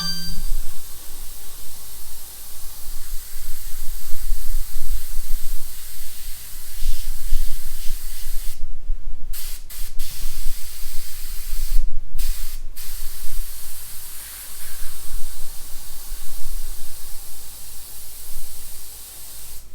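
Airbrush hissing steadily as it sprays paint, the air cutting off briefly a few times around the middle as the trigger is let go.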